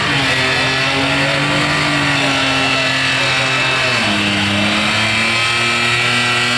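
Holden VN Commodore's 3.8-litre V6 held at high revs in a burnout, spinning the rear tyres. The revs dip briefly about four seconds in, then are held high again with a slight waver.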